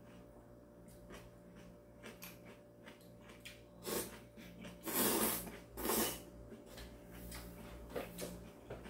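A person slurping instant ramen noodles loudly three times in quick succession about halfway through, with soft chewing and mouth clicks before and after.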